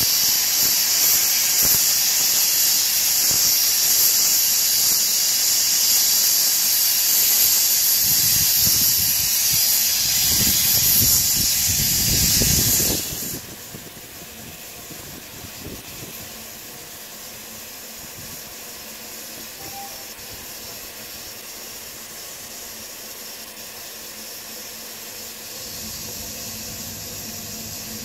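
Single Fairlie narrow-gauge steam locomotive blowing steam from its open cylinder drain cocks, a loud steady hiss, as it tries to start a loaded slate train. A lower rumble joins in a few seconds before the hiss cuts off suddenly about halfway through, leaving a much quieter steady background.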